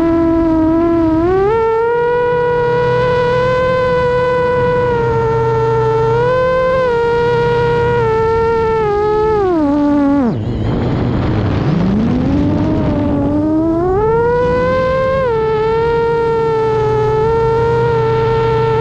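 FPV quadcopter's brushless motors whining steadily, the pitch stepping up and down with throttle. About ten seconds in the pitch drops sharply and the whine breaks into a rough noise, then climbs back up as the motors spool up again.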